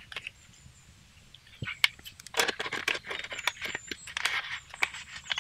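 Paper banknotes and a soft clear plastic envelope rustling and crinkling as cash is handled and slipped into the envelope, with many small clicks and taps. Almost quiet for the first second and a half.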